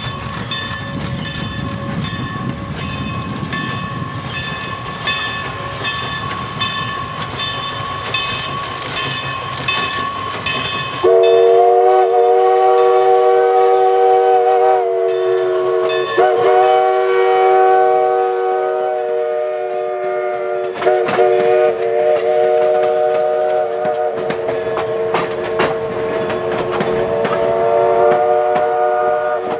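Everett Railroad No. 11, a 2-6-0 steam locomotive, working past with a steady beat of exhaust chuffs. About 11 seconds in, its chime steam whistle starts blowing several tones at once in long, loud blasts with brief breaks, continuing as the engine passes.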